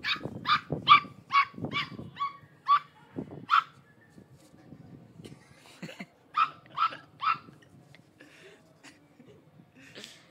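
Pug puppy yapping in short, high-pitched barks at a rabbit it is afraid of: a quick run of about eight barks, a pause, then three more.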